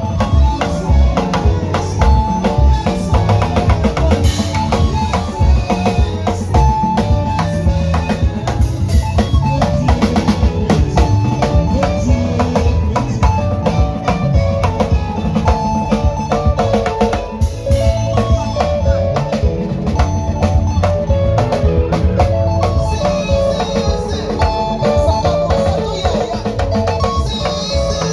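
Music with a drum kit: steady kick and snare hits under held bass and other pitched instrument notes.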